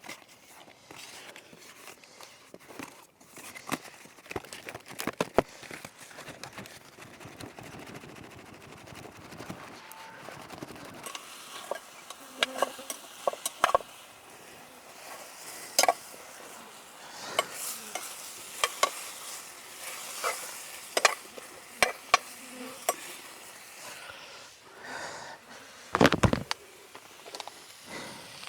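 Food sizzling over a campfire, with irregular sharp clicks and knocks throughout and a louder bump near the end.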